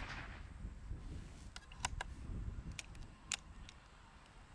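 Faint, sparse mechanical clicks, about half a dozen scattered irregularly over two seconds.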